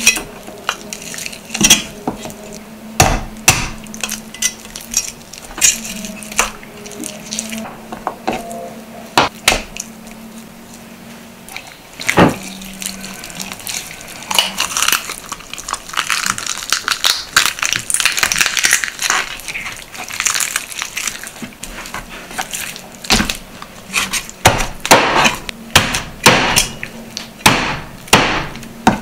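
Chinese cleaver chopping through raw whole chicken onto a wooden cutting board: sharp, scattered knocks of the blade hitting the board, with a quicker run of chops near the end. In the middle, softer tearing and rustling as the raw chicken is pulled apart by hand, over a faint steady low hum.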